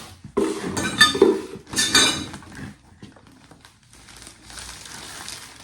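Rattling, clinking and rustling of packaging and hard plastic parts being handled while a boxed animatronic is unpacked. The loudest clatter comes in the first two and a half seconds, then it goes quiet apart from a faint rustle.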